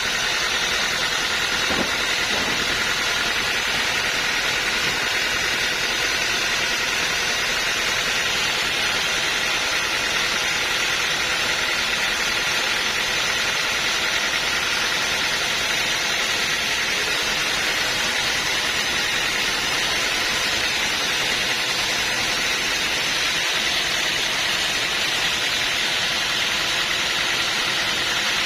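Sawmill saw machinery running steadily, a constant whine over a hiss with no change in pitch or level.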